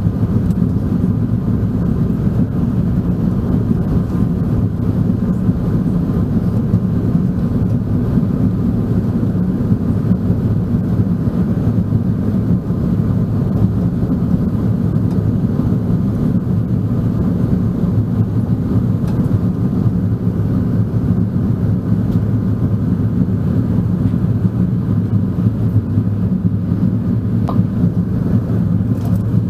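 Steady cabin noise inside an Airbus A380 airliner in flight: a low, even drone of airflow and engines that does not change.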